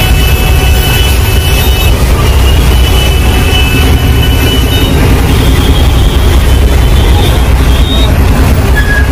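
Loud, steady low rumble of a moving bus, its engine and road noise heard from inside the cabin, with faint thin high tones on and off over it.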